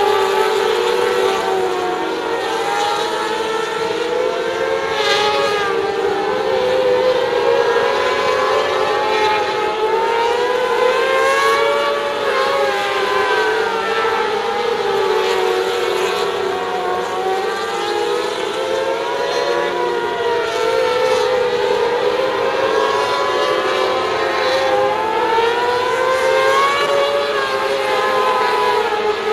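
Several mini sprint race cars racing round the track, their engines rising and falling in pitch in overlapping waves as they speed up and slow down on each lap.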